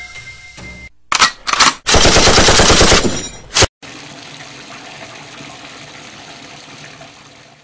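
Gunfire sound effect: two loud shots, then about a second of rapid machine-gun fire and a final shot. A steady hiss follows and fades out near the end.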